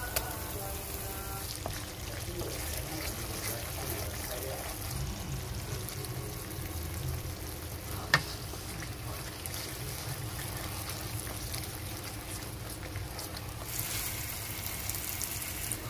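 Thick curry sauce with butter sizzling in a frying pan as it is stirred with a wooden spoon. A single sharp click comes about halfway through, and the sizzle grows louder near the end.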